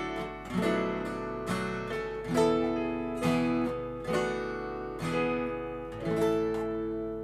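Acoustic guitar strummed in slow chords, about one a second, over electronic keyboard, playing a worship song instrumentally. A last chord near the end is left to ring and fade.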